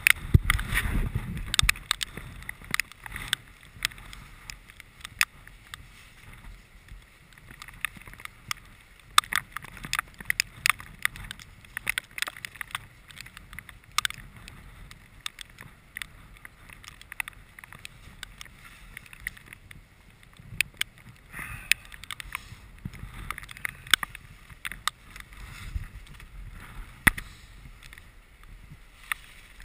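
Irregular sharp clicks and knocks of climbing gear and the body-mounted camera being jostled as a climber moves on rock, over a low rumble of wind and handling on the microphone.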